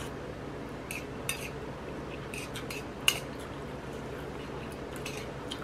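Metal cutlery clinking and scraping against a ceramic plate as noodles are picked up. There are a few sharp clinks, the loudest about three seconds in, over a steady low hum.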